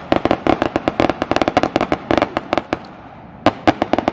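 A string of firecrackers tied beneath a rising hot-air balloon going off in a fast, irregular crackle of sharp pops, several a second, with a short lull about three seconds in.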